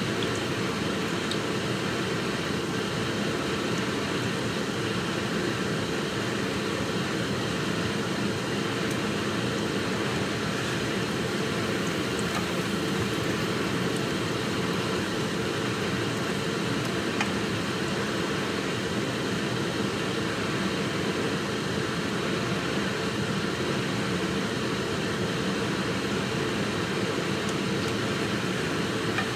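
Steady, even rushing noise with no distinct events, of the kind a running fan or air handler makes.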